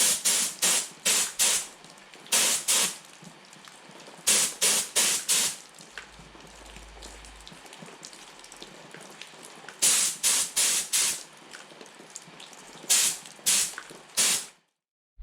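Spray paint hissing out in quick short bursts, several in a row, then a pause and another run, as window frames are sprayed black.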